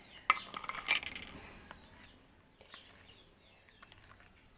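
A metal spoon clinking and scraping against a container while the salt slime mixture is stirred: a quick clatter of sharp clinks in the first second and a half, then a few faint taps.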